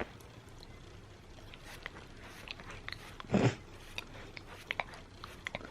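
Labrador puppy mouthing and chewing, making small scattered clicking mouth sounds, with one louder short noisy sound about three and a half seconds in.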